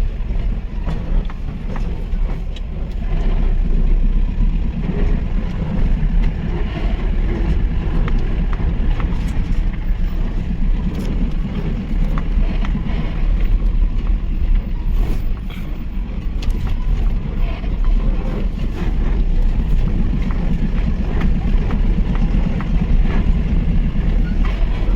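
Engine of an overloaded Mahindra pickup truck running steadily under load while driving on a rough track, with scattered light knocks and rattles.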